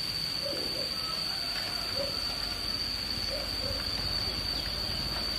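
Chicken wings simmering in Coca-Cola in a frying pan, a steady bubbling sizzle, over a steady high-pitched whine; a few faint short low calls come and go.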